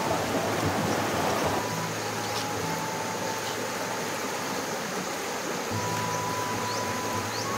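Steady rush of flowing river water, with soft background music of long held notes laid over it.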